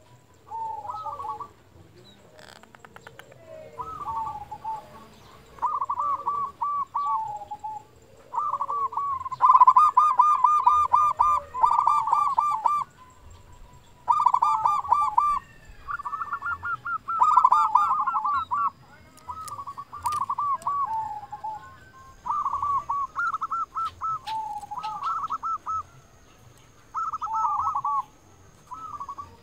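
A local Indonesian zebra dove (perkutut lokal) cooing over and over: about a dozen quick phrases of rolling, stuttering coo notes, each one to two seconds long, with short pauses between them.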